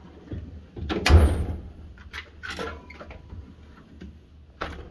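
Steel drawers of a US General 72-inch tool chest on ball-bearing slides: one drawer slides shut with a loud clunk about a second in, then another is pulled open, its tools rattling, with a sharp click near the end.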